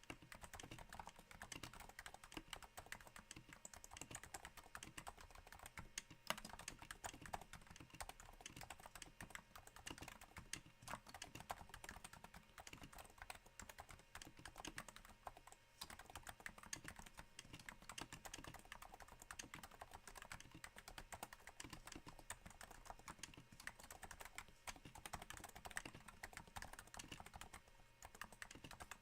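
Steady typing on a Cooler Master Novatouch keyboard, its Topre switches damped with Hypersphere silencing rings: a quiet, continuous patter of soft keystrokes that sounds a little like rain. The board sits on a thin desk mat.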